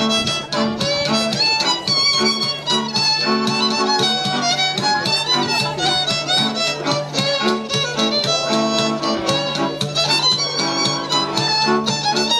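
Hungarian folk dance music: a fiddle plays a busy melody over regularly pulsing chord accompaniment and a sustained bass.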